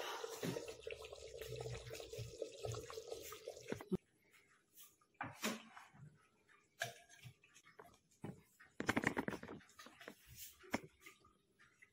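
Hot chicken gravy hissing and steaming in a freshly unsealed clay pot (matka), a steady watery hiss that stops abruptly about four seconds in. Then come scattered clinks and scrapes of a metal ladle in the clay pot and on a steel plate, busiest just before the end.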